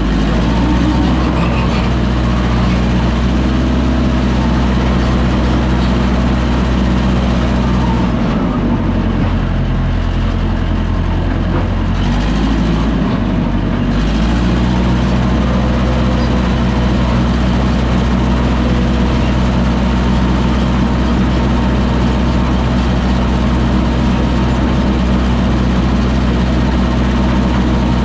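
Diesel engine of heavy earthmoving equipment running steadily. About eight seconds in its note drops for several seconds, then picks back up.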